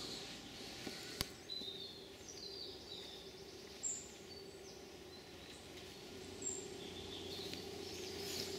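Quiet woodland ambience with scattered short, high bird chirps and a faint steady hum underneath; one sharp click about a second in.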